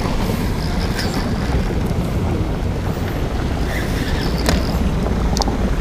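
Wind buffeting the microphone: a steady low rumble, with a few faint clicks scattered through it.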